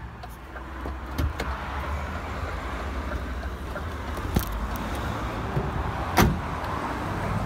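Steady low rumble of running vehicles, with several sharp knocks and clicks, the loudest about six seconds in.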